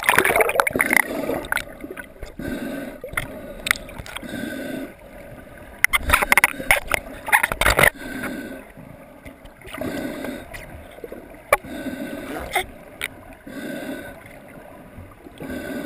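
Muffled water heard through a snorkeler's underwater camera: gurgling and swishing, with a soft whoosh recurring about every two seconds and scattered sharp clicks.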